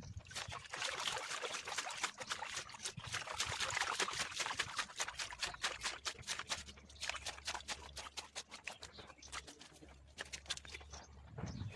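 Water pouring and trickling with a dense run of small splashes, easing off after about eight seconds.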